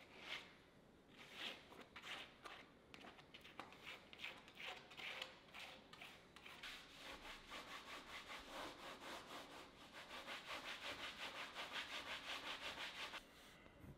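Oil paint being worked onto a canvas: a palette knife scraping in separate short strokes, then a faster, even run of rubbing strokes by hand across the canvas that stops about a second before the end.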